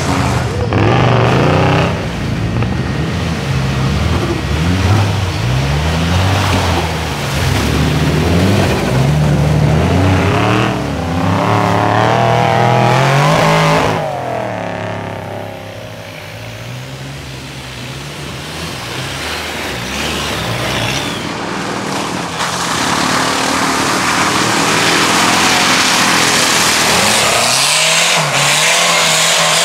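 Engines of custom-built off-road mud buggies revving hard, the pitch climbing and dropping again and again as the wheels churn through deep mud. About halfway through it falls quieter, then a loud steady rushing engine noise takes over.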